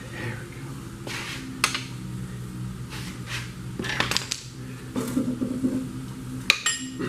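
Scattered metal clinks and clanks of hand tools and bolts while the main bearing caps are unbolted from a 1950 Mercury flathead V8, over a steady low hum.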